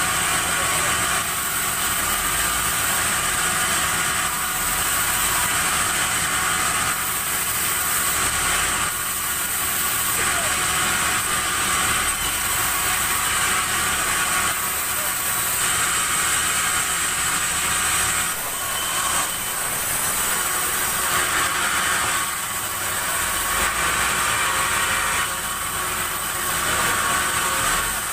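Sawmill saw running steadily through a large acacia log, a continuous high-pitched hiss and whine over an engine hum.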